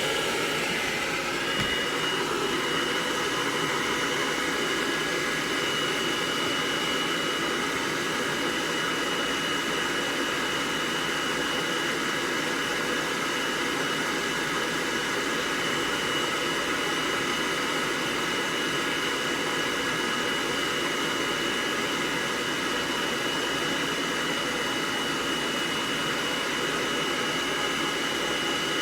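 Hair dryer blowing steadily while drying a cat's fur, with a steady high whine that sets in about a second and a half in.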